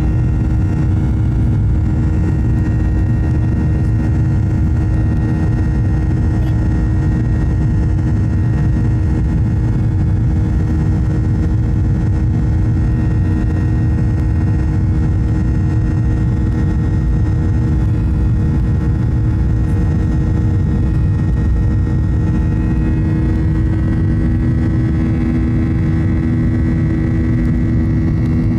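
Jet airliner cabin noise during the climb after takeoff: the turbofan engines and airflow make a steady, loud drone with a deep rumble and constant humming tones. A second low hum joins about three-quarters of the way through.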